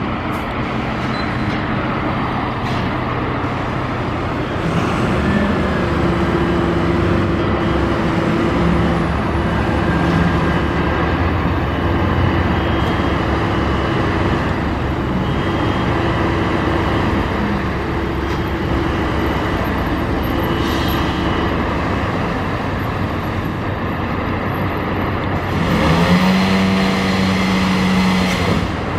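Fire truck engine running steadily. Near the end its pitch rises and holds higher, as the engine speeds up.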